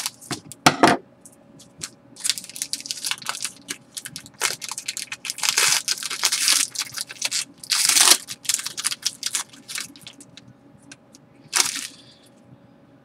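A trading card pack's wrapper being torn open and crinkled, in a long series of crackles that stops a second or so before the end.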